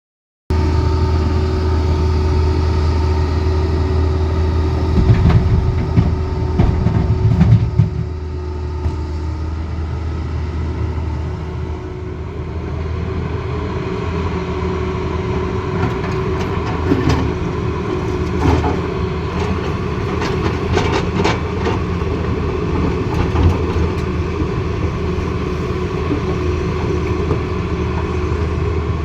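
Tata Hitachi Zaxis excavator's diesel engine running steadily with a low hum. Bursts of knocks and clatter come about five to eight seconds in and again through the second half.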